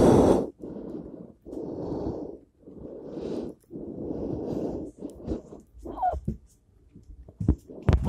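A person breathing heavily in a steady rhythm, about one breath a second. About six seconds in there is a short high squeak, then a couple of light knocks near the end.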